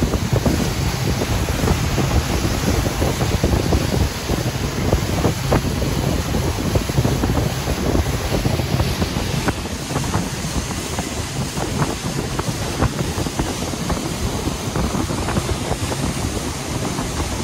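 Wind buffeting the microphone on a pontoon boat under way, with water rushing and splashing beneath it as a steady rush dotted with small sharp splashes.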